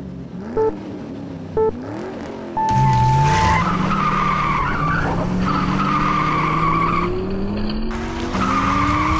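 Race-start countdown: two short beeps a second apart, then a longer beep. Then race car sound effects follow: engines revving up in rising pitch with a steady screech of tires.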